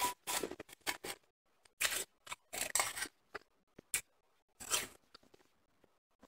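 Close-up chewing of finely crushed, snow-textured ice: a quick run of irregular crunches for about three seconds, then a few spaced-out crunches that die away in the last second.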